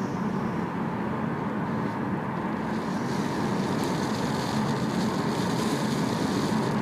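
Nissan Juke's engine and road noise heard from inside the cabin under light acceleration at low revs, about 1000–1500 rpm, the condition in which an unwanted extraneous noise appears; the owner guesses it may be fuel starvation. The steady sound grows a little louder about three seconds in.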